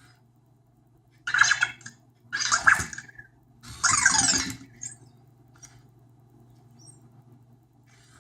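Anki Vector robot giving three short bursts of electronic chirping sound effects, about a second apart, over a faint steady hum.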